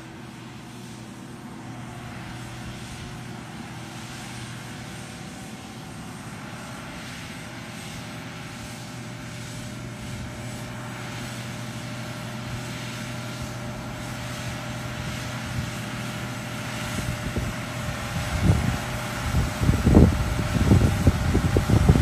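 Case IH Steiger 580 four-wheel-drive tractor's diesel engine droning steadily under load while it pulls a land-leveling scraper. The drone grows louder as the tractor approaches, and uneven low rumbling joins in over the last few seconds.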